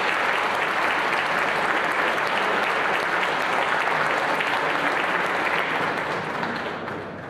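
Audience applauding, a dense even clapping that begins to die away near the end.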